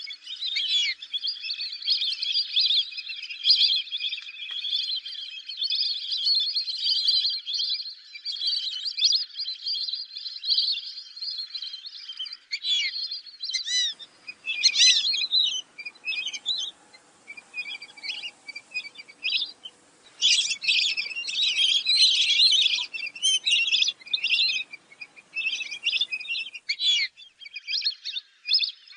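A flock of fulvous whistling ducks calling: many high, squeaky whistles overlapping in a dense chorus, which breaks into separate bursts of calls about halfway through.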